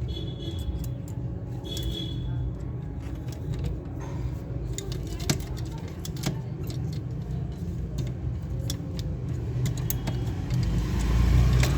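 Scattered light clicks and rattles of a small metal matchstick toy gun being handled and taken apart, over a steady low rumble that grows louder near the end.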